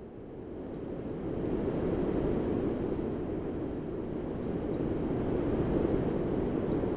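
Low wind-like rumble that swells over the first couple of seconds and then holds steady.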